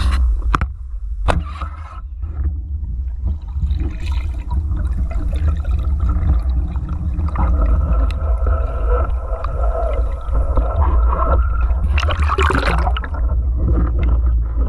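Water sloshing and gurgling close to the microphone, over a steady low rumble, with a short louder rush of water a little after the middle.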